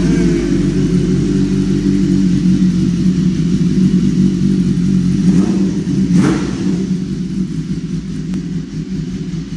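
Suzuki Hayabusa's inline-four engine idling steadily just after being started, with a short throttle blip about six seconds in.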